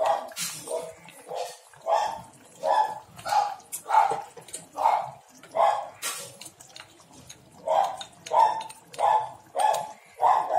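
A dog barking over and over, about one and a half barks a second, with a break of a second or so past the middle before it starts again.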